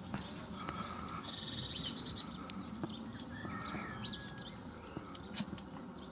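Blue tits calling: short high chirps throughout, with a rapid trill about a second in.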